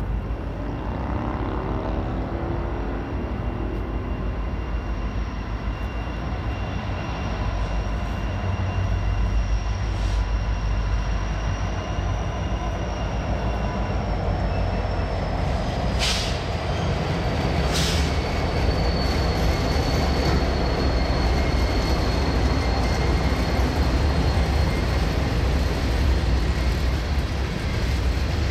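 A Norfolk Southern diesel-hauled freight train passes with a steady low rumble of locomotives and rolling wheels. Past the halfway point a thin high tone drops in pitch as the lead locomotives go by, and two sharp clanks come about two seconds apart. Then the tank cars roll by, a little louder.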